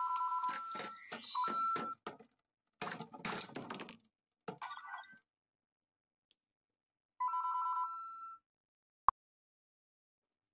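LEGO Super Mario interactive Peach figure's built-in speaker playing short two-note electronic chimes, at the start and again about seven seconds in. In between, plastic LEGO pieces clatter and click as the figure knocks them loose, and a single sharp click comes about nine seconds in, the loudest moment.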